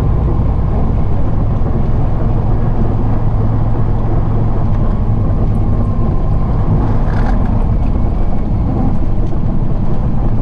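Semi truck's diesel engine running steadily at low speed, heard from inside the cab as a deep drone with road noise. A brief hiss comes about seven seconds in.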